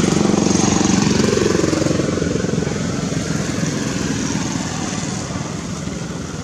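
An engine running, its level slowly falling over the last few seconds as it fades away.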